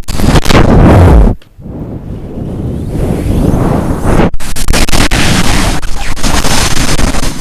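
Strong wind with rain, a loud rushing noise that swells in gusts. It drops out abruptly about a second and a half in, builds back up over the next couple of seconds, and breaks off again briefly a little past four seconds.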